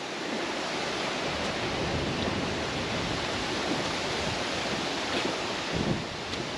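Steady wind noise, an even rushing hiss with no breaks.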